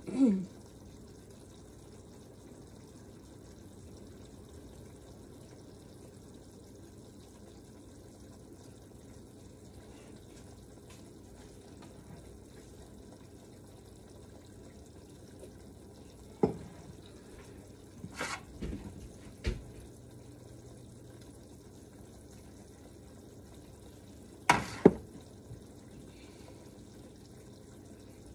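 Sauce simmering in an enameled cast iron Dutch oven, a steady low bubbling. A few sharp knocks and clicks stand out, the loudest about 16, 18 and 24 seconds in.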